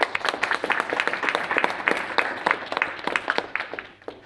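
Audience applauding, a dense patter of many hands clapping that tapers off near the end.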